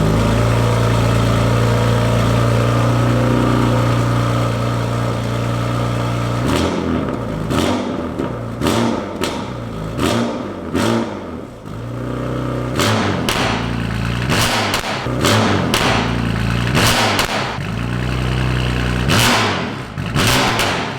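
BMW M4's twin-turbo inline-six through a decatted stainless-steel FI straight-pipe exhaust, running at a steady idle just after its first start-up. About six seconds in, a string of short sharp throttle blips begins, often in pairs, and runs on to the end.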